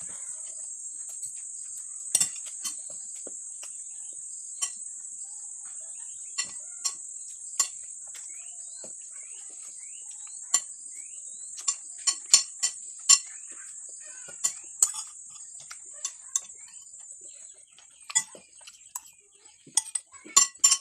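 Spoon and fork clinking and scraping against a plate while eating, in irregular sharp clinks that come thickest about twelve seconds in and again near the end. Under them runs a steady high-pitched insect trill that fades out a few seconds before the end.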